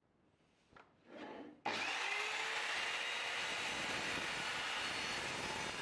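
An Evolution R210SMS+ 210 mm sliding mitre saw is switched on about a second and a half in, starting suddenly, and runs at speed with a steady whine and rush.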